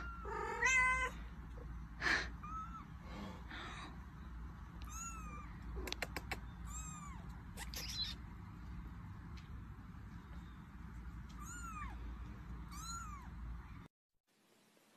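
Mother cat and kitten meowing: a series of short, high mews that rise and fall, one every second or two, over a low steady hum. The sound cuts off abruptly near the end.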